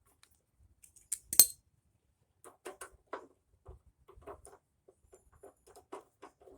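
Small metal hardware being handled and fitted: two sharp clinks about a second in, the louder one the loudest sound, then a run of light clicks and taps.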